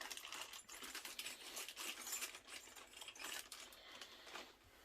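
Faint rustling and small clicks of sewing-machine accessories and their plastic packaging being handled and unwrapped.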